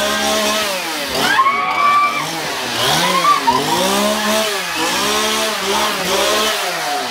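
Chainsaw engine revved over and over, its pitch rising and falling back about once a second.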